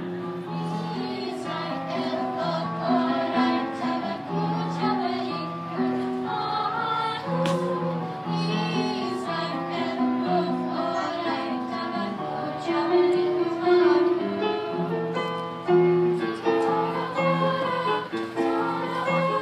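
Children's choir singing, accompanied by a digital keyboard playing repeated chords beneath the voices.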